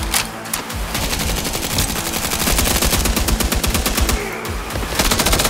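Bursts of rapid automatic gunfire from a Nerf blaster battle, densest in the middle and again near the end, over background music.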